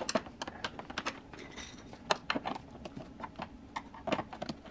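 Irregular small clicks and taps of a flathead screwdriver and fingers working the plastic clip tabs of a BMW E46 headlight gasket trim to unclip it.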